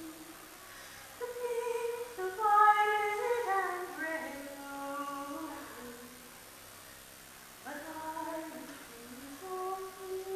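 A woman singing a broadside ballad solo and unaccompanied, in long held phrases with two short pauses between them.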